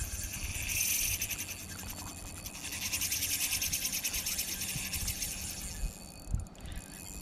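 Spinning fishing reel running with a rapid, fine clicking, in two spells: a short one about a second in and a longer one from about three seconds to nearly six seconds in. A few soft low knocks follow near the end.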